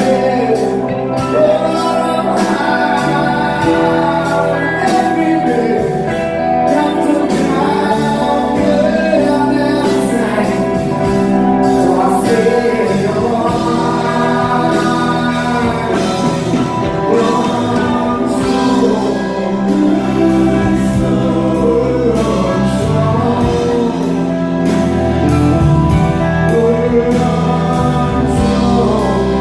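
Live rock band playing electric guitars, keyboards and drums, with singing, heard from the audience in a concert hall.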